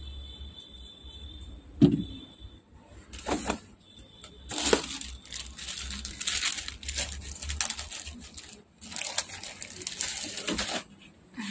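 A sharp knock about two seconds in, then a plastic bag rustling and crinkling as it is handled, with a short break near the end.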